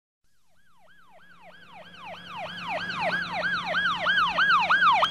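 Siren yelping in fast repeated sweeps, each a quick rise then a fall in pitch, about three a second. It fades in from silence and grows steadily louder, over a faint low hum.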